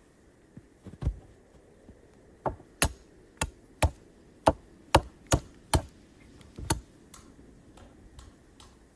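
A run of about ten sharp knocks, roughly two a second, from a repeated striking action, starting a couple of seconds in and stopping near the end.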